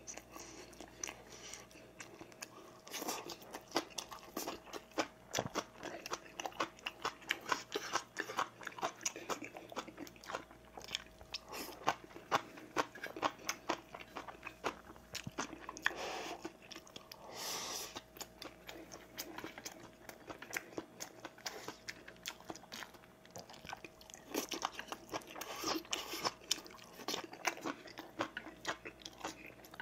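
Close-miked chewing and mouth sounds of a man eating rice and seasoned vegetable side dishes, with many small clicks of metal chopsticks against a stainless steel tray and bowls.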